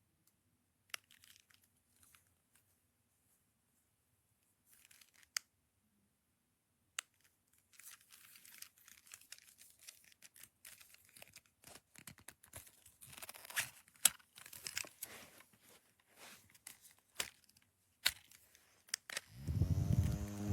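Plastic packaging being handled and torn open: a few scattered clicks, then a long run of crinkling and tearing. A loud steady hum with several pitches starts just before the end.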